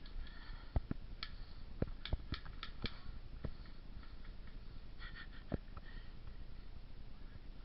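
Footsteps and handling of gear while moving through woods: irregular soft thumps with sharp clicks, several in a quick run about two to three seconds in and a couple more around five seconds in.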